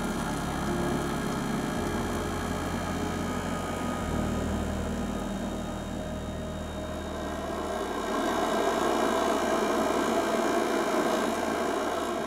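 Steady rushing noise of a fuel-fired burner heating a kiln of ceramic casting shells, growing louder about eight seconds in, over low sustained notes of background music.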